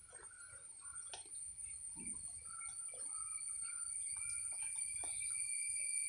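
A steady high-pitched insect drone that grows louder, with a few short bird chirps over it.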